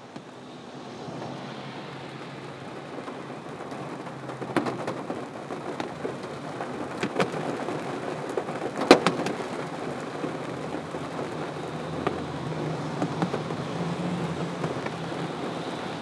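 Steady rain with thunder. The rain fades in over the first couple of seconds, sharp thunder cracks come about four and a half, seven and nine seconds in (the loudest near nine), and a low rumble follows later on.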